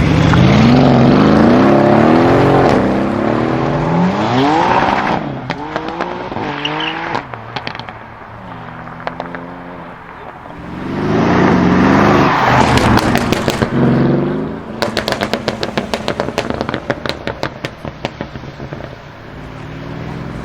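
Tuned Mercedes CLS63 AMG's twin-turbo V8 revving hard, its pitch climbing in repeated rising sweeps. Exhaust crackles and pops come in quick strings as the revs fall, then a second hard run about 11 seconds in, followed by a longer rapid string of crackles.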